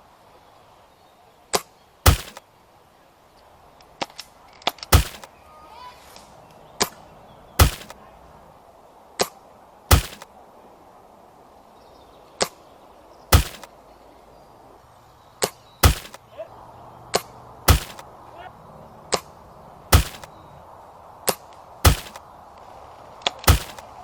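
Airsoft sniper rifle (an upgraded SSG10 A1 spring bolt-action) firing shot after shot, each a sharp snap, most of them followed within about a second by a second sharp crack, some twenty snaps in all.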